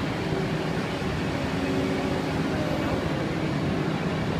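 Komatsu wheeled excavator's diesel engine running steadily while the hydraulic boom swings the bucket.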